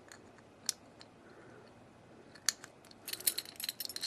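Key being fitted into and worked in the keyhole of an old Keline padlock: a few separate metallic clicks, then a quick run of clicking and rattling near the end.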